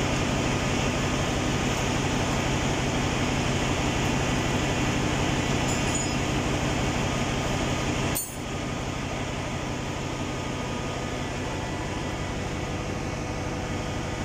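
Steady drone of ship's engine-room machinery, an even noise with a faint hum and a fast low pulsing; the level drops slightly and abruptly about eight seconds in.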